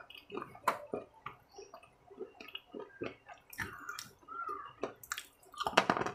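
A person chewing and lip-smacking close to the microphone: an irregular run of short, wet clicks and smacks, busier near the end.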